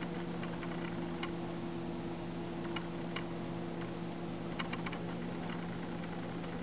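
Scattered light clicks and taps in small irregular clusters over a steady low hum: handling noise from a handheld camera being moved about.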